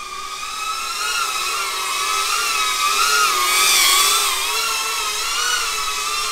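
Shendrones Squirt HD ducted FPV quadcopter's motors and propellers whining in flight, the pitch wavering up and down with throttle. It grows loudest about four seconds in as the drone flies close past, then eases slightly.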